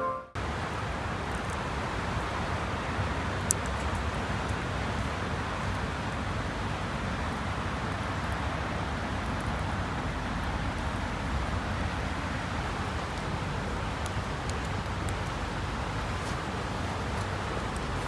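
Steady rushing outdoor background noise, with one sharp click about three and a half seconds in and a few faint clicks near the end.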